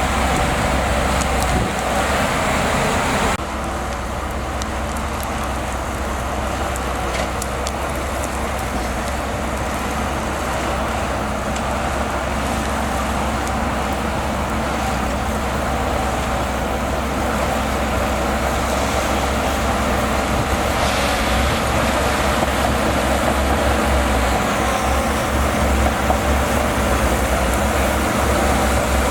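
Shantui DH17C2 bulldozer's diesel engine running steadily with a deep low rumble. The sound shifts abruptly about three seconds in, then carries on evenly.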